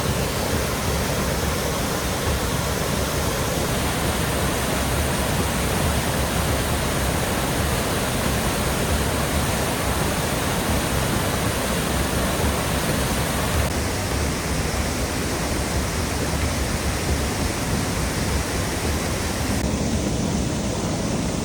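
Waterfall running high with spring water: a steady, loud rush of falling and churning water.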